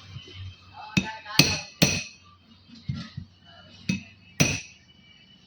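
Hammer striking metal: five sharp blows, three in quick succession and then two more, each with a brief ring.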